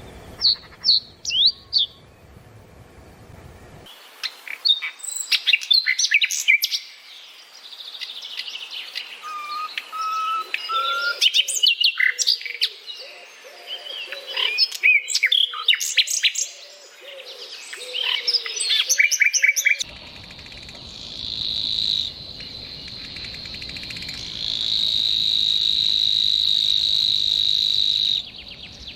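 Songbirds calling and singing: a few quick falling chirps, then a long, varied song of rapid whistled notes and trills. About two-thirds of the way in it gives way to a steady, high buzzing trill.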